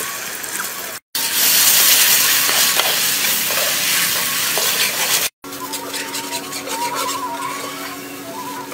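Thick chili-and-garlic sauce sizzling and frying in a wok while a metal ladle stirs it. The sizzle cuts off abruptly twice and is loudest between the cuts. In the last few seconds it is quieter, with a faint wavering tone and a low steady hum under it.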